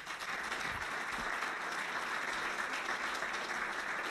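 Audience applauding, a steady even clapping.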